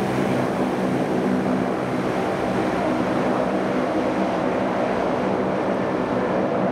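C-130 Hercules turboprop engines and propellers running: a loud, steady hum of several held tones over a rushing noise, with no change in pitch.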